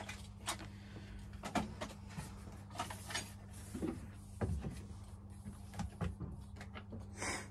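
Rummaging at a metal tool chest and workbench: drawers, lids and tools giving a string of light knocks, clicks and clatters, with a short rustle near the end. A steady low hum runs underneath.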